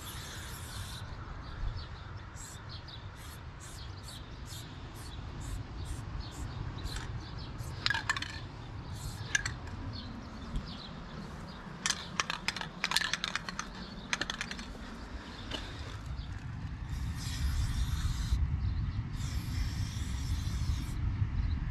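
Aerosol spray-paint can hissing in many short taps, with longer sprays at the start and for a few seconds near the end, as black outlines are laid down. A quick run of sharp clicks and crackles comes about halfway through.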